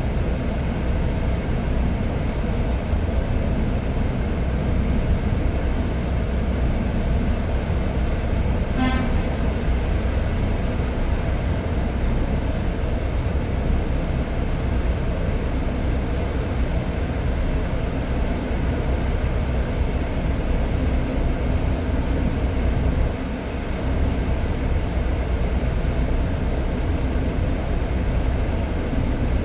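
Ship's machinery running with a steady low drone.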